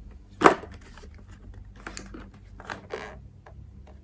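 Rigid plastic blister packaging being handled and cut open: a sharp snap about half a second in, then several shorter crinkling rustles.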